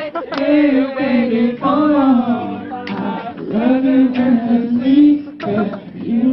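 Vocal group singing a boyband medley live in harmony, holding long notes, with no clear instrumental backing.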